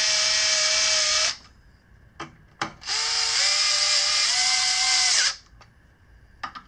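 Dremel cordless screwdriver running in two bursts as it drives in the bracket screws, a shorter one at the start and a longer one in the middle whose pitch steps up as it goes. A few light clicks fall between the runs.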